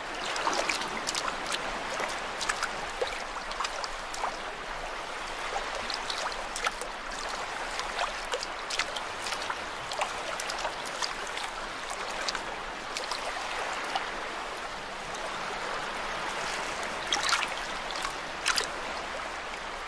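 Water trickling and gurgling over wet mangrove mud, with a steady scatter of small clicks and pops throughout.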